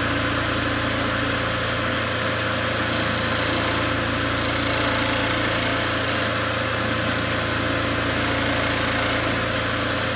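Wood lathe running steadily with a constant motor hum, while a lathe knife takes light shaving cuts on the spinning wooden spindle, adding a hiss that shifts every second or two as the blade moves along the work.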